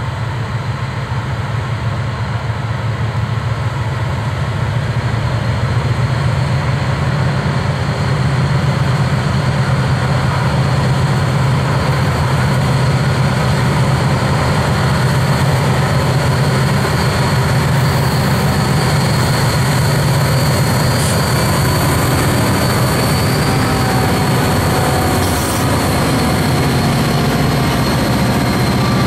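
Diesel locomotives at the head of a freight train running under power as they approach. Their low engine drone grows louder over the first several seconds and then holds steady, and near the end the locomotives and freight cars roll past close by.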